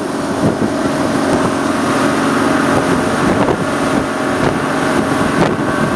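Small boat's engine running steadily under way, a constant hum under a rushing noise of wind and water.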